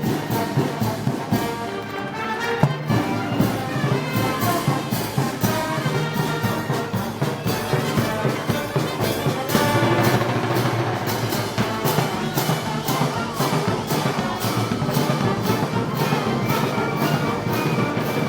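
Brass band playing a Moros y Cristianos festival march, with brass carrying the tune over drums and cymbals keeping a steady beat.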